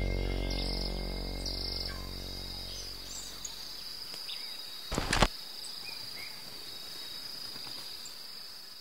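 Background music fading away over the first few seconds, leaving outdoor ambience: a steady high insect trill with scattered bird chirps. About five seconds in, a short loud clatter of knocks.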